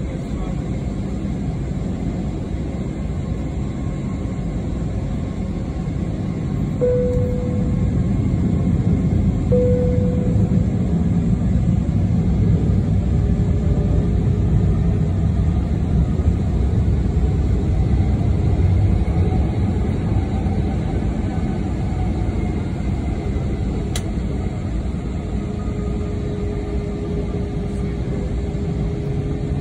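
Airbus A321 passenger-cabin noise as the airliner taxis onto the runway: the jet engines run at taxi power under a steady low rumble that grows louder about seven seconds in. Two brief tones sound about seven and ten seconds in.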